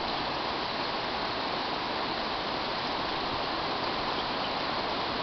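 Steady, even rushing of water, with no change in level.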